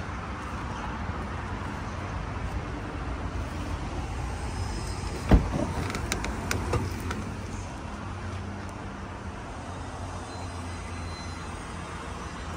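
A van door clunks once, loudly, about five seconds in, followed by a few lighter clicks, over a steady low rumble of outdoor traffic.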